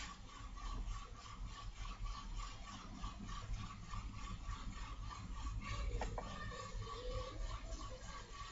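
Faint steady background noise from the recording: a low hum and hiss with a thin steady tone, and one sharp click at the very start.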